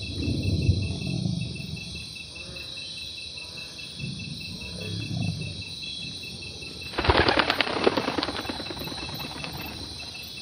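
Sound-effects soundscape: deep, heavy creature breathing close up, twice, then about seven seconds in a sudden flurry of wing flaps bursting out of underbrush, lasting about two seconds. A steady insect chirp runs underneath as jungle ambience.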